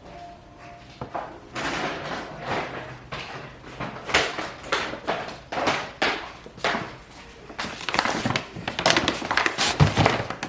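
Plastic grocery bags rustling and crinkling in quick bursts as they are carried and handled, with a heavier knock near the end.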